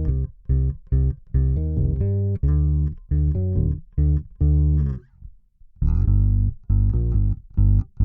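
Electric bass guitar played through a DemonFx OctaBass octave pedal and recorded direct: a run of short plucked notes, with a brief pause about five seconds in before the notes resume.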